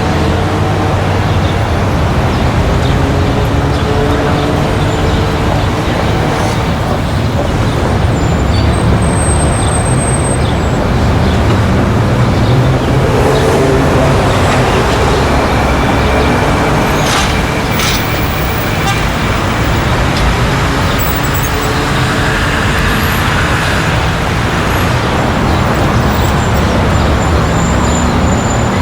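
Street traffic ambience: a steady, loud mix of vehicle engines and tyre noise from passing cars and buses.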